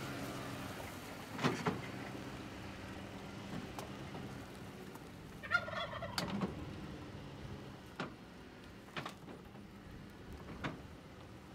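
Ford pickup truck engine running as it tows a loaded utility trailer away, its hum fading, with scattered clunks and rattles from the trailer and its load of loose boards. A turkey gobbles once about five and a half seconds in.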